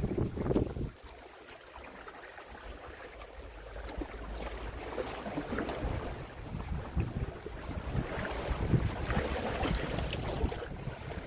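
Wind buffeting the microphone over small sea waves washing at the shore. The gusts drop away about a second in and pick up again after about four seconds.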